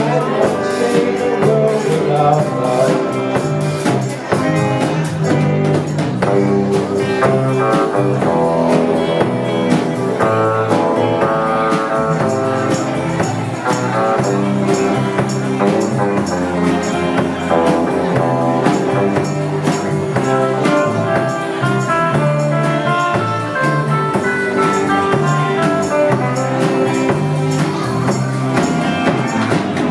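A live band playing rock and roll, with a steady drum beat under sustained instrumental notes.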